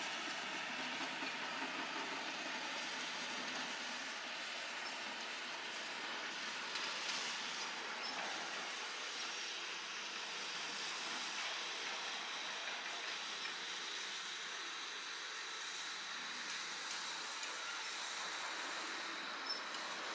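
Komatsu PC240 hydraulic excavator running steadily under work, its diesel engine and hydraulics making an even mechanical noise, with a brief sharp knock near the end.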